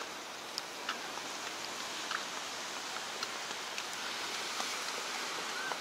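Steady hiss of surf breaking along the beach, with a few faint footsteps on the wooden boardwalk.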